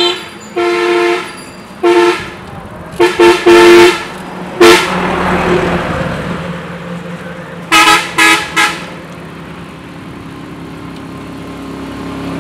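Road traffic passing close by, with about ten short vehicle horn honks in clusters over the first nine seconds. About five seconds in, a large vehicle rushes past, and near the end an engine grows louder as another vehicle approaches.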